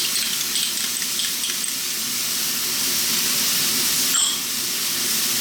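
Chicken and vegetables with freshly added soy and oyster sauce sizzling in a wok on maximum heat, a steady hiss. A brief metallic clink about four seconds in.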